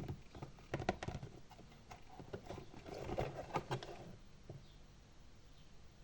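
Close-miked clicks and taps of tableware and objects being handled on a table for a cake-eating ASMR recording: a flurry of small clicks about a second in, another cluster with light rustling around three to four seconds in, then only the odd tap.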